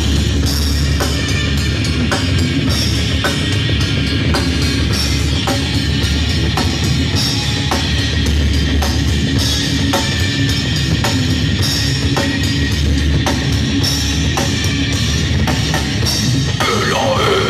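A live rock band playing an instrumental passage on electric bass, electric guitar and drum kit, the drums keeping a steady beat of about two hits a second. Near the end a wavering, sliding tone comes in over the band.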